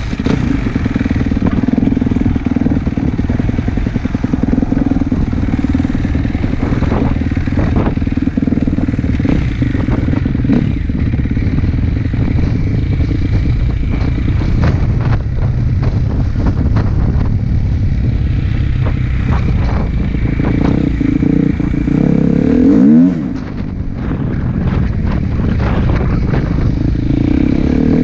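Dirt bike engine running under throttle as the bike is ridden, revs rising and falling, with a brief drop near the end as the throttle is shut off, then a rising rev as it pulls away again.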